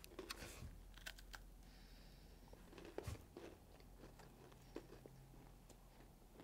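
Faint crunching and chewing of chocolate muesli bites, with scattered small sharp cracks as pieces are broken off and bitten.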